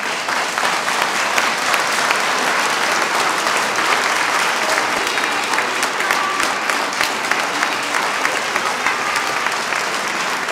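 A large congregation applauding in a church: dense, steady clapping from many hands.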